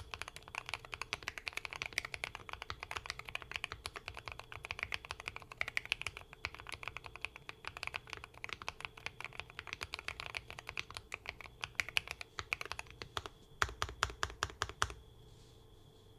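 Bridge75 mechanical keyboard with hand-lubed Princess linear switches, PC plate, tape mod and full foam, typed on fast and continuously. Near the end comes a run of heavier, deeper keystrokes, then the typing stops about a second before the end.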